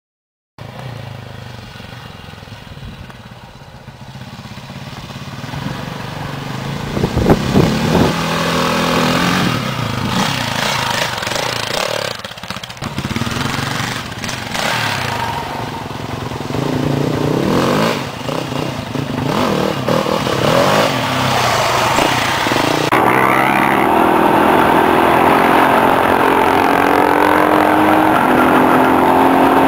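Dirt bike engines revving and passing close by, with pitch rising and falling with the throttle. From about two-thirds of the way through, one dirt bike engine runs steadily at speed, heard from a bike on the move.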